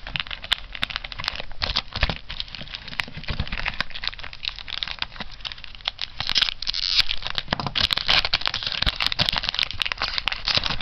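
Foil trading-card booster-pack wrapper crinkling and crackling as it is handled and opened, with louder stretches about six seconds in and again near the end.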